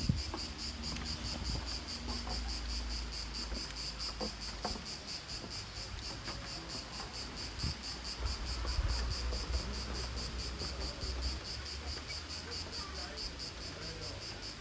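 Insects chirping: a steady, high-pitched song that pulses rapidly and evenly, over a low rumble.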